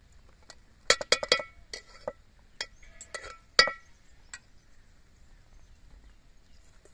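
Metal spoon clinking against a metal cooking pot and steel vessels: a quick run of ringing clinks over about three seconds, the loudest near the end.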